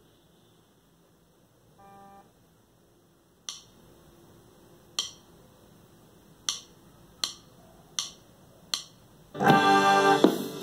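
Strat-style electric guitar played through an amp. A short soft note sounds about two seconds in, then six sharp clicks come at a steady spacing, and loud strummed chords start near the end.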